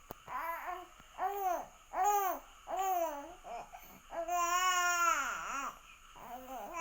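Baby babbling and calling out in short rising-and-falling calls about a second apart, then one longer drawn-out call a little past the middle.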